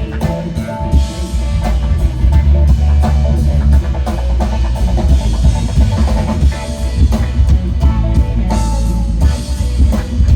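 Live band playing an instrumental rock groove: bass guitar holding a heavy low line under guitar and a drum kit keeping a steady beat.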